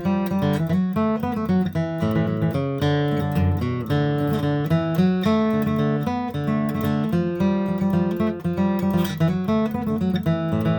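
Acoustic guitar music, plucked and strummed at a lively pace.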